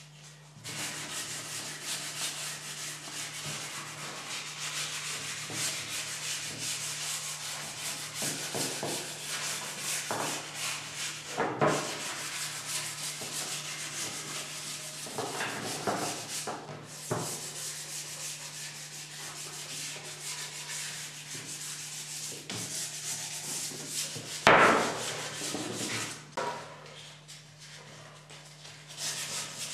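Hand-sanding of a bentwood chair frame with abrasive paper: quick, continuous back-and-forth rasping strokes with brief pauses, and a single louder knock about three-quarters of the way through as a wooden part is handled on the bench. A steady low hum sits underneath.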